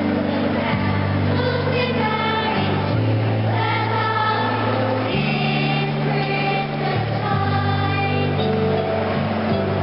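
Children's school choir singing a Christmas carol together, over an accompaniment of held low notes that change every second or two.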